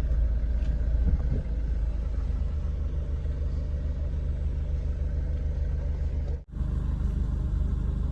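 Steady low rumble of a car heard from inside the cabin, with a brief dropout about six and a half seconds in.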